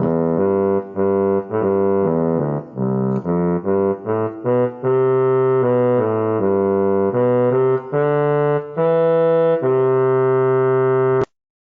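Casio CTK-2400 keyboard playing a melody of separate notes on one of its preset voices, the notes getting longer and more held towards the end before the sound cuts off suddenly.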